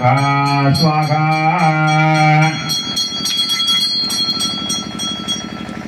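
A long, steady horn-like tone held for about two and a half seconds over a rapidly rung puja hand bell. The bell keeps ringing alone for a few seconds more after the tone stops.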